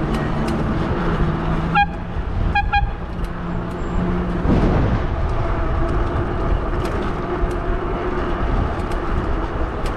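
Street traffic with wind noise on the microphone; a horn gives one short beep about two seconds in, then two quick beeps just under a second later.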